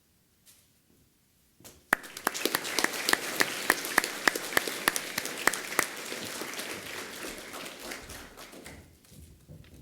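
Audience of school students applauding: the clapping starts suddenly about two seconds in, with some loud single claps standing out close by, and dies away near the end.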